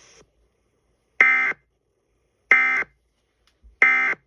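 Emergency Alert System end-of-message data tones: three short, buzzy digital bursts about 1.3 seconds apart, the coded signal that closes the alert test.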